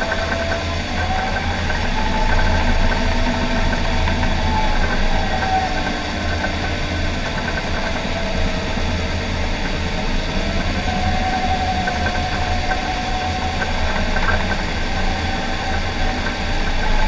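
John Deere 750K crawler dozer running steadily under load, heard from inside the cab: a deep diesel engine drone with a fainter whine that wavers up and down in pitch.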